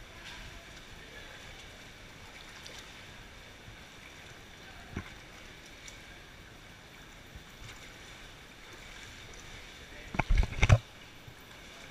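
Shallow cave stream water running and splashing around wading feet, a steady rushing hiss. One short knock about five seconds in, and a quick cluster of loud thumps near the end.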